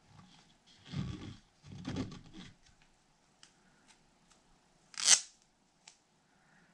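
Tape being handled and pressed over the vent holes of a soft rubber RC paddle tire: two short rubbing sounds about one and two seconds in, a few light clicks, then one short, sharp rip of tape about five seconds in, the loudest sound.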